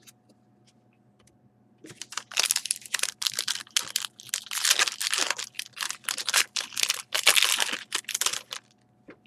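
Foil wrapper of a hockey card pack being torn open and crinkled by hand: a dense run of crackling and tearing that starts about two seconds in and stops shortly before the end.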